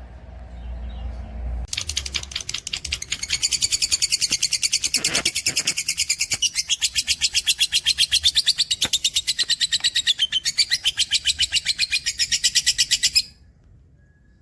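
Pet cage bird singing a long, fast, even trill of high repeated notes that stops abruptly near the end.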